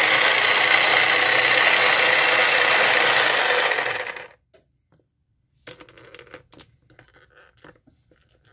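Small electric food chopper running steadily as it chops zucchini, then cutting off about four seconds in. After a short pause come scattered clicks and rattles of its plastic bowl and lid being handled.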